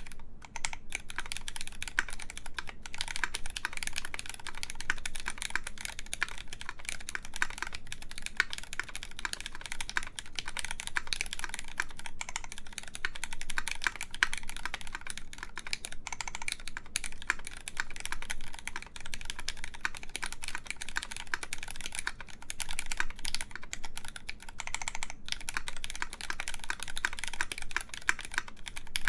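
Continuous typing on a KMAC Happy mechanical keyboard fitted with lubed Cherry MX Black Clear Top linear switches and GMK keycaps on a full aluminum plate: a steady stream of keystroke clacks with a few short pauses.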